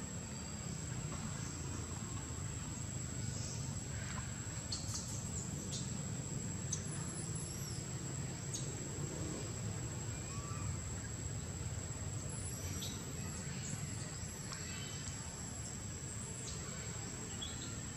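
Forest ambience: a steady high-pitched insect drone, with scattered short high chirps and a low steady rumble underneath.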